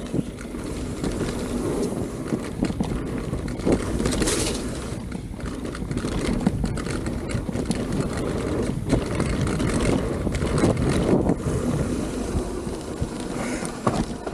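Mountain bike riding down a dirt flow trail: tyres rolling on dirt with many small knocks and rattles from the bike, and wind on the camera microphone.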